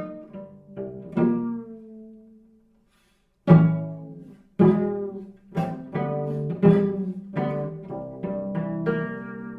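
Solo cello played pizzicato: single plucked notes and chords that ring and fade, a short pause about three seconds in, then louder plucked notes, the last one left ringing.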